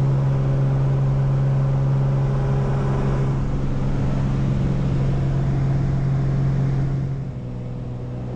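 Single-engine high-wing light aircraft's engine and propeller droning steadily, heard from inside the cabin. It gets a little quieter about seven seconds in.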